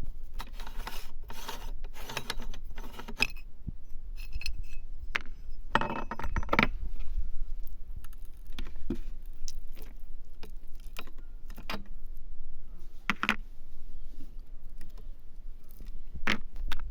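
Meat grinder crushing hard lollipop candy: irregular sharp cracks and clinks of breaking candy over a low steady hum.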